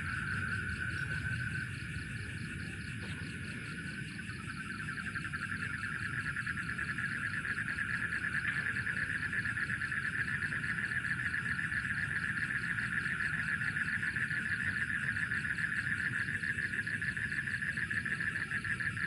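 Night insects trilling in a continuous fast, even-pitched buzz that swells louder about four seconds in, over a low rumble.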